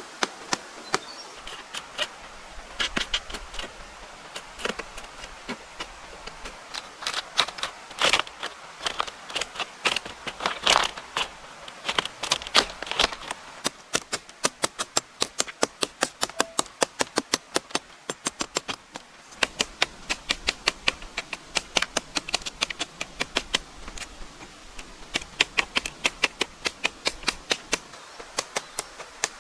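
Hammer blows on wood: sharp knocks, uneven and bunched for the first dozen seconds, then a steady, even tapping of about three strokes a second.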